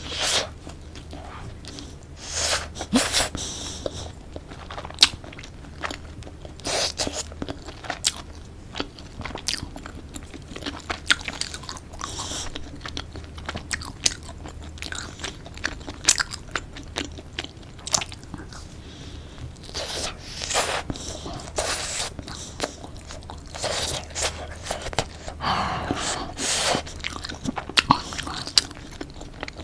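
Close-miked eating of a tortilla-wrapped chicken wrap: crunchy bites and chewing come in irregular clusters throughout, over a faint steady low hum.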